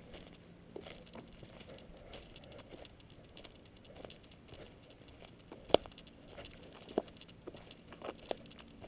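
Faint, irregular crunching and crackling of a hiker's footsteps on dry leaf litter and sandy trail, with three sharper ticks about a second and a quarter apart in the second half.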